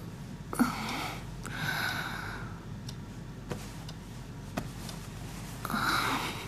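A woman's breathy sighs and gasps as she stirs awake in bed: one sharp gasp about half a second in, a long exhale soon after, and another sigh near the end. A few faint clicks fall between them.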